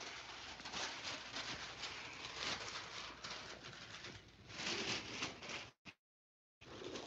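Faint rustling and scratching of golden retriever puppies moving about close to the microphone. The sound cuts out completely for under a second near the end.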